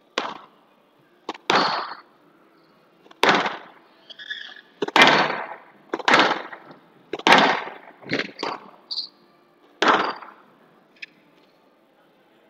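Squash rally on a glass-walled court: the ball cracks sharply off rackets and walls about once a second, with two short, high shoe squeaks on the court floor.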